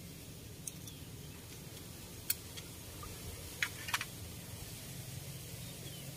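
A fishing pole being handled and laid onto its rod rest: a few sharp clicks and taps, the loudest a pair close together about four seconds in, over a low steady rumble.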